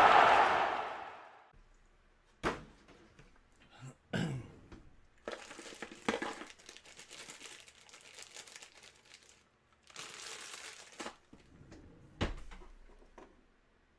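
Crinkling and rustling of packaging handled on a table, with scattered knocks and clicks. At the start, a loud noisy sound fades out over the first second or so.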